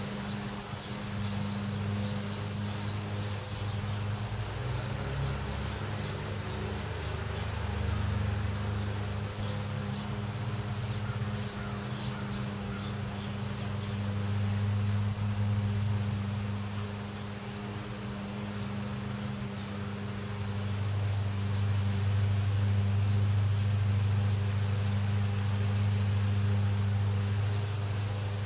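Steady low hum of car traffic, swelling and fading several times, with a faint high chirring of insects.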